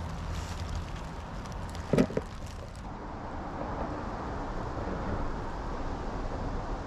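A single sharp crack about two seconds in as a crab is cut with a knife for bait, over a steady low rumble of distant traffic.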